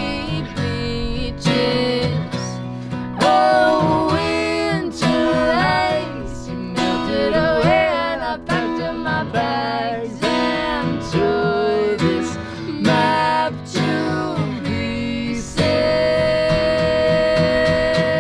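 Music: a song with strummed acoustic guitar and a gliding, wordless melody line, which settles about three-quarters of the way in onto one long, wavering held note.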